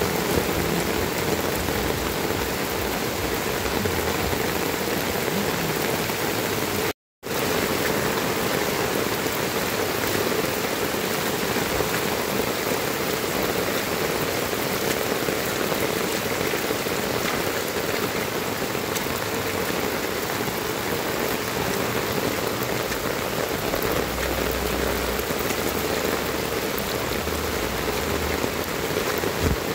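Heavy rain pouring down steadily on a paved road, with rainwater running over the surface. The sound cuts out completely for a moment about seven seconds in, then resumes unchanged.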